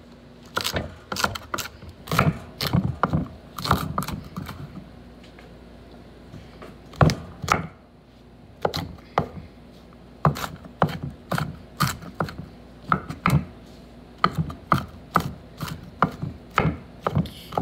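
Kitchen knife chopping mushrooms, celery and sweet peppers on a wooden cutting board: a string of sharp knocks of the blade against the board, about two a second, with a short pause partway through.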